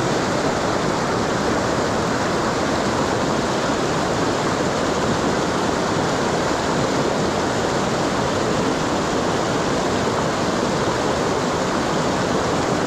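Mountain torrent rushing steadily, a loud, even wash of fast-flowing water.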